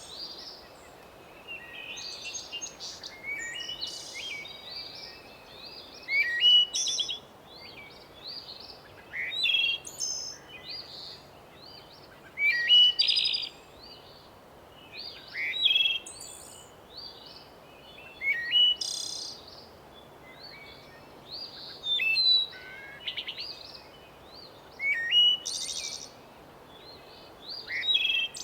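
Birds chirping and singing in short, bright phrases that recur about every three seconds, over a faint, steady background hush like a light breeze: a daytime bird ambience.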